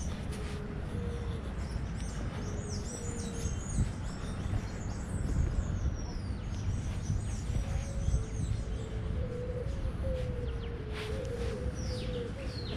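Small birds chirping and trilling in the trees, in bursts of quick high notes, over a steady low rumble. A lower, repeated call runs underneath through much of the stretch.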